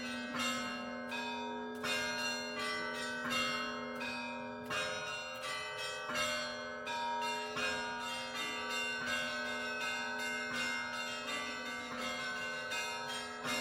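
Russian Orthodox church bells rung in a festive zvon: many bells struck in quick, rhythmic patterns, their strikes overlapping and ringing on over a steady low bell tone.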